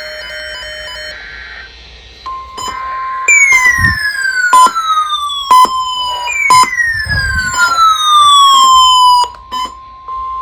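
NOAA Weather Radio weekly test: a SAME data burst ends in the first two seconds, then the steady 1050 Hz warning alarm tone sounds. Over the tone, weather-alert receivers go off with two long falling siren-like sweeps and scattered short beeps.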